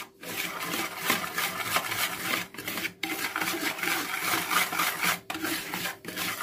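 Wire whisk stirring dry semolina mix in a bowl: a continuous gritty scraping, broken by brief pauses about three seconds in and twice near the end.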